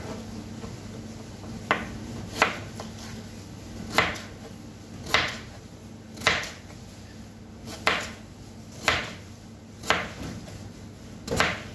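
Crinkle-cut (wavy serrated) knife slicing through raw peeled potato and knocking onto a plastic cutting board, one cut at a time, about nine cuts roughly a second apart.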